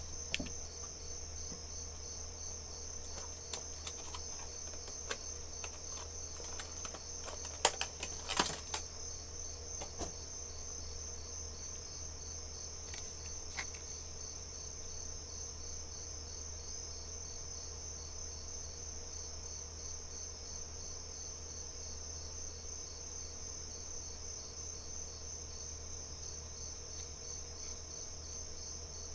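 Crickets chirping steadily in a dense chorus throughout. Between about 3 and 10 seconds in, small sharp clicks and rattles of plastic being handled, loudest in a quick cluster about 8 seconds in, as the headlamp's battery pack and its extension are pulled and worked.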